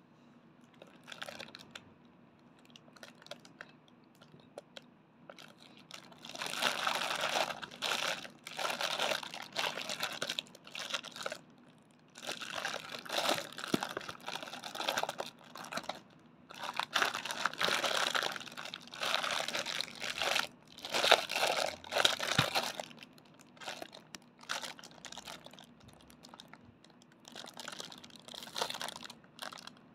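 A clear plastic bag crinkling and rustling as hands handle it, in irregular bursts with short gaps. It is faint for the first few seconds, loudest through the middle, and softer again near the end.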